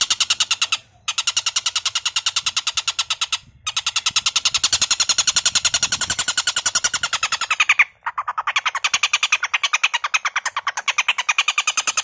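Oriental dollarbird (tengkek buto) giving a harsh, rapid chattering call, a fast string of repeated rough notes broken by three short pauses.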